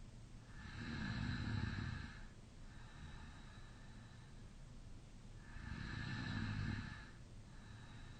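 A man snoring in deep sleep with his mouth slightly open. There are two long snoring inhales, about a second in and again about five and a half seconds in, with quieter breaths between them.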